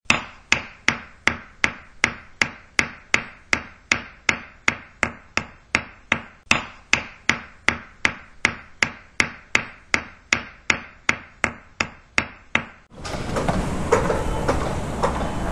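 Steady, evenly spaced ticking, about two and a half sharp ticks a second, each with a short ringing tail and silence between. About 13 seconds in it stops and the steady rumble of a car driving, heard from inside, takes over.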